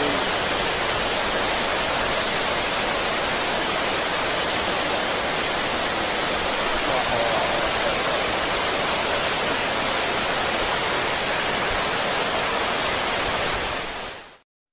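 Flash-flood water rushing across flooded fields, a steady hiss of water noise that fades out just before the end.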